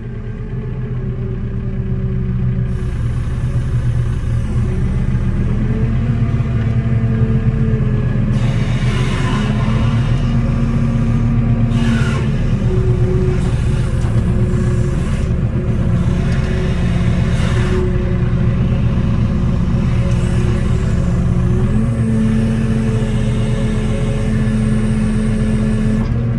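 JCB telehandler diesel engine running, heard from inside its cab, its revs rising and dropping several times as the loader's boom is worked. Several bursts of hiss come and go over the middle part.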